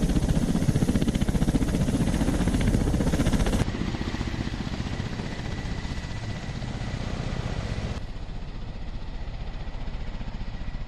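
Kamov Ka-52 attack helicopter with its coaxial rotors beating rapidly. A steady high turbine whine runs under it after about three and a half seconds. The sound drops suddenly in level at about three and a half seconds and again at about eight seconds.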